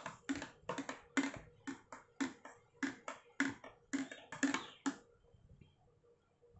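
Metal spoon stirring foaming milk in a steel tumbler, clinking against the sides about three to four times a second, and stopping about five seconds in.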